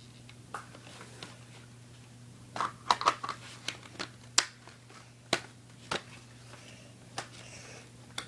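Scattered clicks and knocks of a plastic airsoft spring rifle being handled, a quick cluster about three seconds in and then single ones every second or so, over a faint steady hum.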